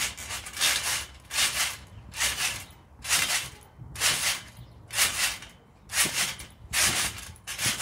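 A trampoline being jumped on: a short noisy swish from the mat and springs with each bounce, repeating evenly a little more than once a second.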